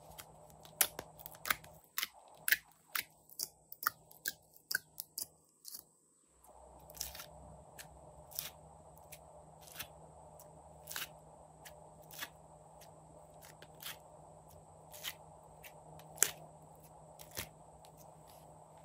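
Sharp clicks and crackles from glossy slime bars being popped out of a plastic ice-cube tray and handled in a toy sink. The clicks come quickly for the first few seconds, then about once a second.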